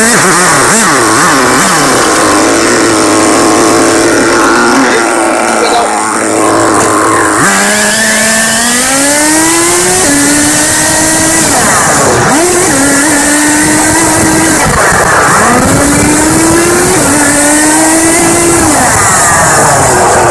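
Nitro RC car's small two-stroke glow-fuel engine running hard, its whine repeatedly rising in pitch as the car accelerates and dropping back as it slows, about five times over the stretch.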